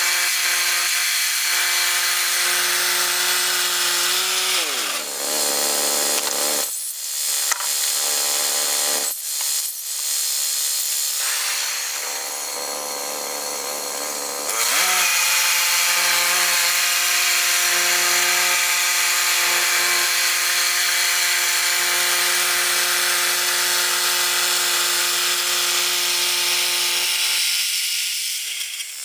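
Portable band sawmill's gasoline engine running with the band blade cutting along a log. The engine note sags about five seconds in and turns rougher for several seconds, runs steady again, then drops near the end.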